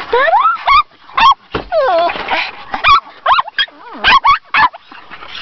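Pugs whining and yelping, a quick series of short high calls that rise and fall in pitch.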